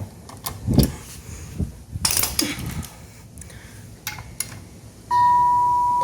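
Scattered metal clicks and knocks from hand work on a garage door lock and its screws. About five seconds in a clear ringing tone starts suddenly and keeps sounding, fading slowly.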